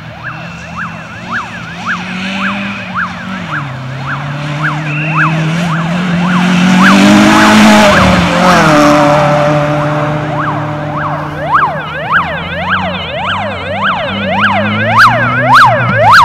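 A Citroën C2 rally car's engine passes at speed, its note climbing to a peak about halfway through and then dropping away as it goes by. Throughout, a siren yelps rapidly up and down, quickening and getting louder over the last few seconds as a course car with a roof light bar comes in.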